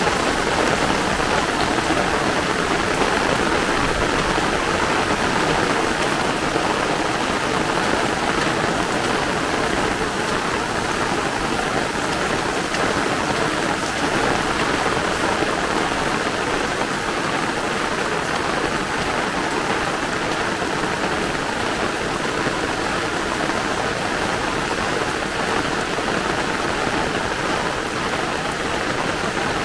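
Heavy downpour falling steadily on a paved lane and the roadside plants, a dense, even hiss of rain.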